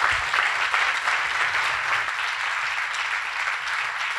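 Audience applauding, steady clapping that grows a little quieter toward the end.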